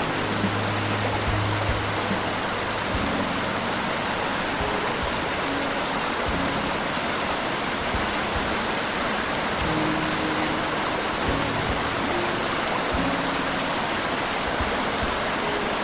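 Steady rushing water noise, an even hiss at a constant level, under soft background music of long, low held notes.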